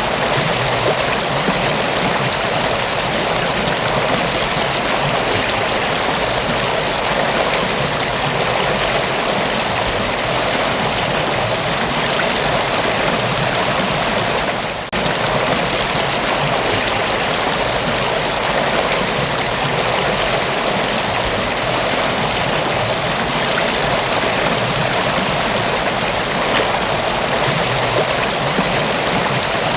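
Mountain waterfall: water rushing and splashing steadily, dipping briefly about halfway through.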